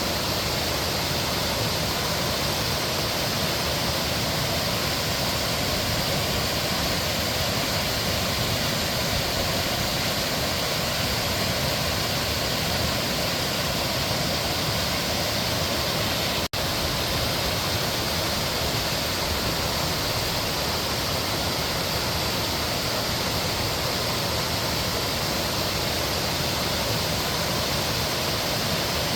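Mountain stream water rushing in a steady, even flow, with a split-second dropout about halfway through.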